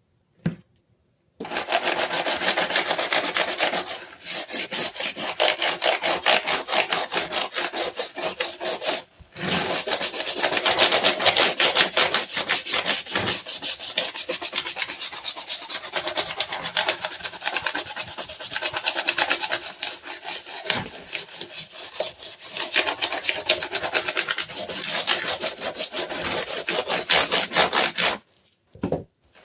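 Rapid back-and-forth scrubbing on a Dell keyboard being cleaned, in fast, steady strokes. It starts after a short tap, pauses briefly about a third of the way through, then carries on until just before the end.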